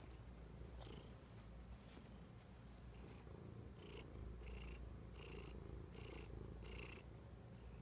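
Domestic cat purring faintly close to the microphone, in an even rhythm of breaths a little under two a second.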